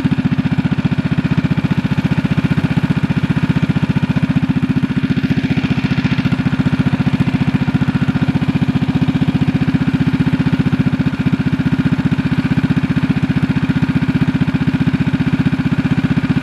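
Mini bike's 212cc Predator single-cylinder four-stroke engine idling steadily through a stage 1 air filter kit and a home-built header with an RLV muffler. It is loud, with an even, unchanging beat.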